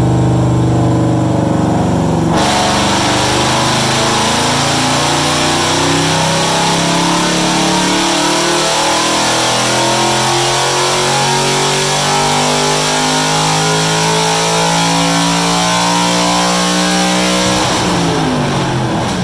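Ford Mustang Coyote 5.0 L V8 with bolt-on intake and exhaust making a full-throttle chassis dyno pull. After a couple of seconds at steady low revs the throttle opens sharply, and the engine note climbs steadily for about fifteen seconds. Near the end the throttle is lifted and the revs fall away.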